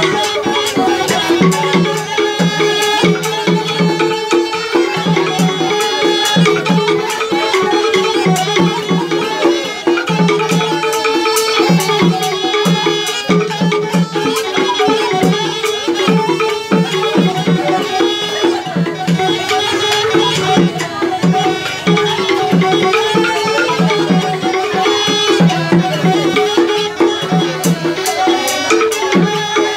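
Batak instrumental ensemble (uning-uningan) playing live: two small wind pipes carry a sustained melody together over a garantung wooden xylophone struck with mallets and a steady, repeating percussive pulse.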